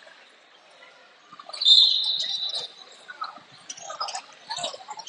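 Basketball sneakers squeaking on a hardwood gym floor during play: a loud, high squeal held about a second, starting about one and a half seconds in, then a run of short squeaks.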